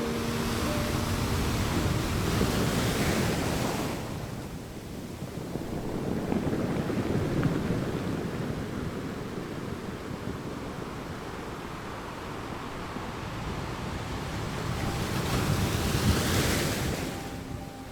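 Ocean surf washing in and drawing back, swelling and fading in slow surges several seconds apart, with the biggest surge near the end.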